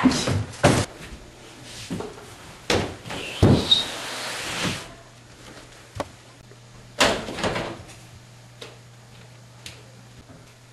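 Several scattered thumps and knocks, as of people jumping and moving about. A steady low hum joins about halfway through.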